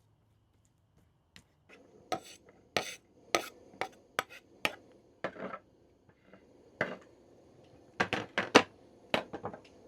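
Irregular sharp clicks and knocks of small hard objects being handled and set down, like dishes or utensils, starting about a second and a half in, with a quick run of four knocks about eight seconds in.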